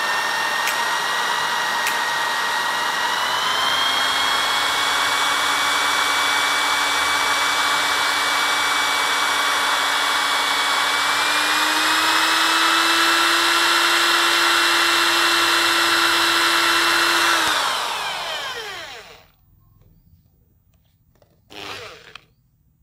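Electric drill spinning an 80-amp car alternator through a belt and pulley, to charge a flat battery. It runs steadily with a whine that steps up in pitch twice, then winds down with falling pitch and stops about eighteen seconds in. A brief handling noise follows near the end.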